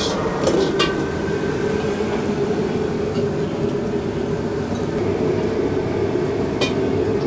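Steady hubbub of a busy noodle stall with low background chatter and kitchen noise, broken by a few sharp clinks about half a second, a second and near the end.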